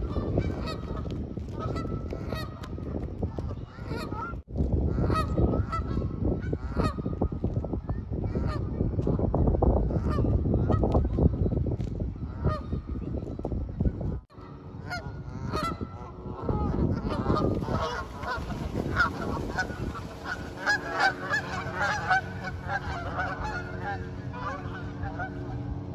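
A flock of Canada geese honking, many calls overlapping. The sound breaks off abruptly twice.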